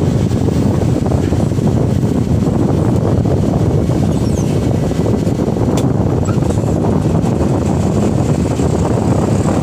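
Diesel engines running steadily, heard from inside a light dump truck's cab with an excavator working alongside. A single sharp click about six seconds in.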